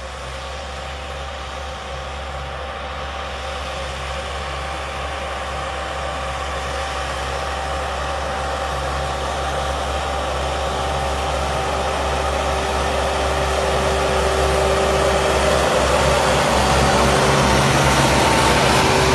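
Tractor diesel engine running steadily under load while pulling a disc plough through dry soil. It grows steadily louder as the tractor comes close.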